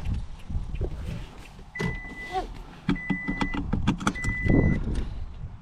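A 2020 Toyota Tundra's dashboard warning chime beeping three times, evenly spaced, with keys jangling and clicks as the key goes in, just before the engine is started after the battery was reconnected.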